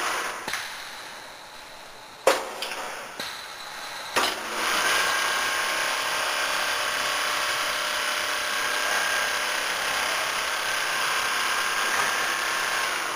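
ABM double-needle quilting machine sewing, its head running steadily. The sound dies down over the first two seconds, a sharp clack and a couple of lighter knocks follow, and steady sewing picks up again about five seconds in.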